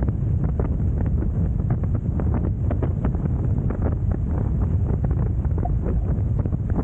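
Wind buffeting the microphone in a steady low rumble aboard a Hobie Tiger F18 catamaran sailing fast, with a constant patter of small splashes and spray as the hulls cut through choppy water.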